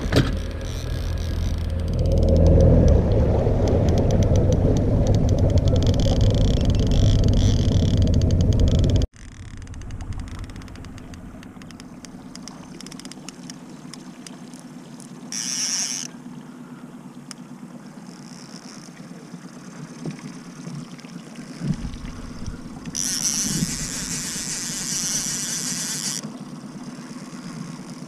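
Outboard motor of a trolling fishing boat running, with water and wind noise, loud for the first nine seconds. It then cuts to a quieter steady hum, with two brief bursts of hiss later on.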